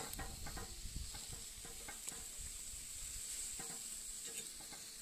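Pork steaks sizzling on a hot cast-iron grill grate over charcoal, with a few light clicks as a fork moves the meat.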